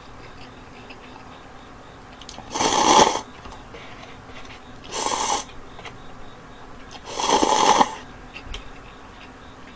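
A person slurping instant cup ramen noodles off chopsticks: three loud slurps, about 2.5, 5 and 7 seconds in, the middle one shortest.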